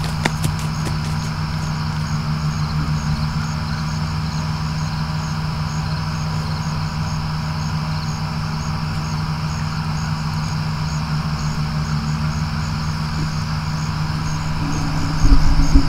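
A steady low engine hum from a vehicle or machine running at a distance, with crickets chirping in a regular pulse high above it. Near the end come a few loud, low thumps.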